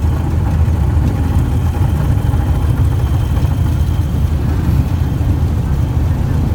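Cessna 170's six-cylinder Continental engine and propeller running steadily, a constant low drone.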